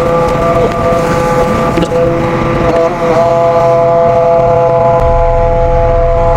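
Truck-mounted crane working a heavy lift: a steady hydraulic whine over the truck's running engine, changing pitch slightly about three seconds in, with a deeper engine rumble coming up about five seconds in.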